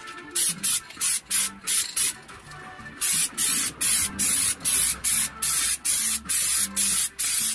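Aerosol spray can of white undercoat spraying in short hissing bursts, two to three a second, with a pause of about a second near the middle.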